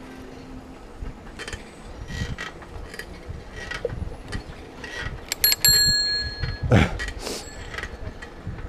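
Bicycle bell rung with a quick run of strikes about five and a half seconds in, its tone ringing on for nearly a second, over the rattle and rumble of the ride. Just after it comes a loud, brief sound that slides sharply down in pitch.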